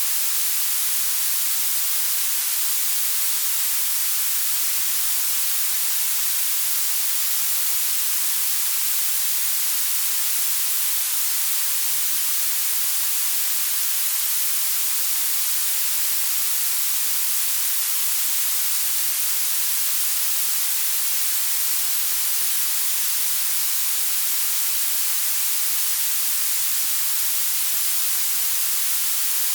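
Blue noise: a steady, unbroken hiss that grows stronger toward the top of the range, with almost no bass.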